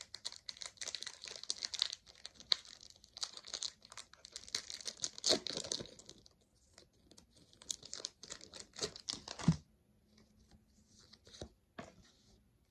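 Pokémon booster pack's foil wrapper being torn open and crinkled by hand: dense crackling rustles for about six seconds, a short pause, a second burst for about two seconds, then only a few scattered clicks.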